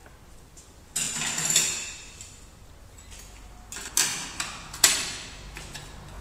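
Small steel discs being handled and fitted onto the arbor of a circular saw blade sharpening machine: a scraping metal clatter about a second in, then a few sharp metal clicks and knocks near four to five seconds in.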